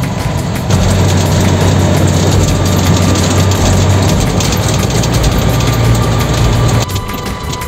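Container truck's diesel engine running, a loud steady low drone with road noise, heard from inside the cab. It steps up sharply just under a second in and drops back near the end.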